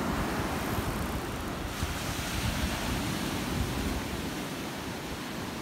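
Surf breaking on a beach with wind buffeting the microphone; the low wind rumble eases somewhat about four seconds in.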